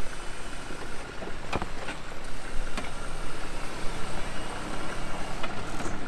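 Jeep engine running steadily on an off-road trail, with a few sharp knocks, the clearest about a second and a half in.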